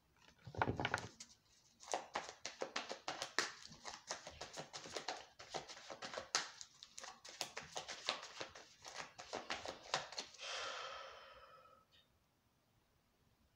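A deck of tarot cards being shuffled by hand: quick, papery flicks and snaps of cards sliding and slapping against each other, with a soft thump at the start and a longer rustle lasting about a second near the end.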